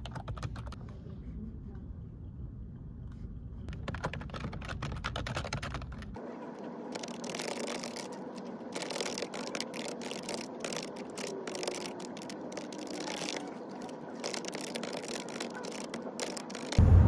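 Typing on a computer keyboard: rapid, irregular key clicks. A low rumble sits underneath for the first six seconds or so, then drops away.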